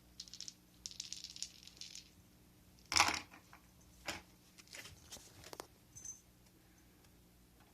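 Ice cubes rattling and skittering on a hard surface as a cat bats at them, with one loud knock about three seconds in and a few lighter clicks after it.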